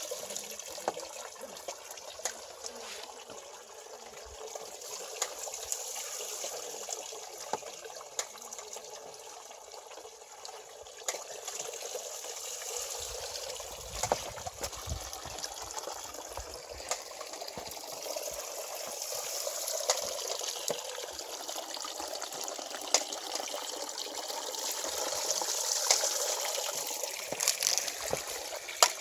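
Water trickling and splashing as it spills over a small water wheel in a valley stream, with frequent sharp splashes and drips at irregular moments.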